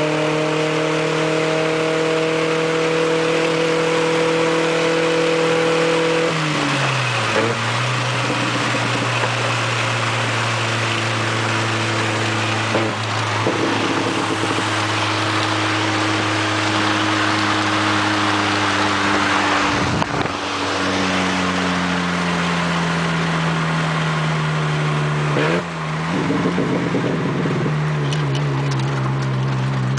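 Volkswagen Saveiro pickup driving with its exhaust rumbling hard. The engine note drifts slowly and shifts abruptly in pitch four times, about a quarter, two fifths, two thirds and five sixths of the way through, as at gear changes.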